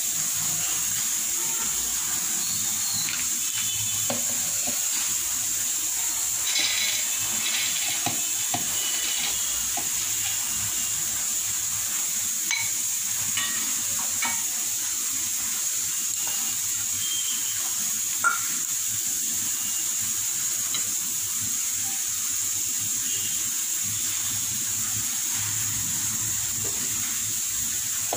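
A steady hiss, with a few faint clicks and light clinks as soaked lentils are handled and put into a steel mixer jar.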